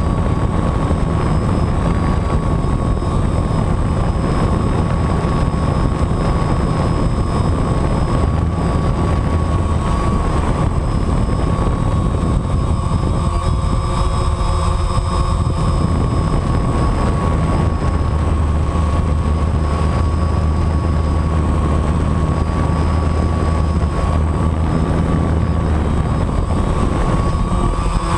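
DJI Phantom quadcopter's motors and propellers in flight, heard from the camera mounted on it: a loud, steady drone with a constant whine.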